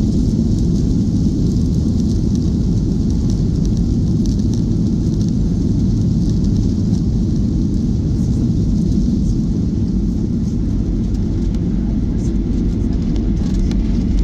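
Boeing 737-900ER rolling out along the runway after touchdown, heard inside the cabin: a steady, loud, low rumble of engines and wheels on the runway.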